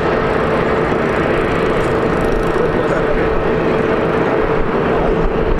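Airbus A320neo's CFM LEAP-1A turbofan engines running at idle, holding before the take-off roll: a steady drone with one held mid-pitched tone over a broad rumble.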